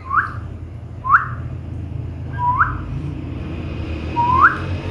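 Baby parrot chick giving four short, sharply rising chirping calls, about a second or more apart.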